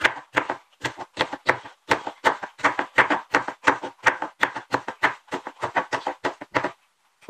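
Kitchen knife chopping green pepper on a wooden cutting board: steady, evenly spaced blade strikes about three a second, stopping shortly before the end.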